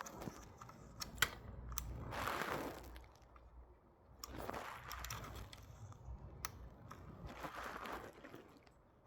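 Small plastic drone parts being handled and pressed into place: a few sharp clicks, a soft scrape now and then, and a low rumble of the parts being held close to the microphone.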